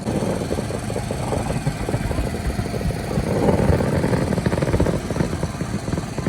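Fireworks going off in a dense, continuous run of crackling and popping, with a low rumble under it.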